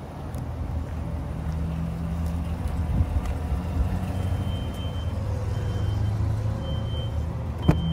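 A vehicle engine idling, a steady low hum. A faint high beep repeats roughly once a second from about halfway in, and there is a sharp click near the end.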